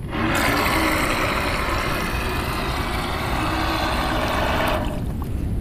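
Radio-controlled boat's motor running at full throttle as the boat speeds across the pond, a steady buzzing whine that starts suddenly and cuts off a little before five seconds in. Wind rumbles on the microphone throughout.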